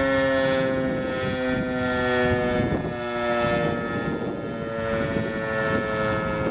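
ACA Screamer electromechanical warning siren winding down after shutoff: its chord of tones slowly drops in pitch and fades as the rotor coasts. Wind noise on the microphone grows underneath.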